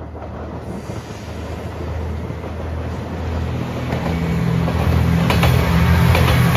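JR Shikoku 2700 series diesel express train approaching and passing close by, its diesel engines running and its wheels rumbling on the rails, growing steadily louder. Sharp clicks from the wheels come in the last couple of seconds as the cars pass.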